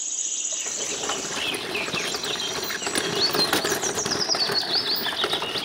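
Battery-powered toy tricycle's small motor and plastic gears rattling as it drives along, with birds chirping over it.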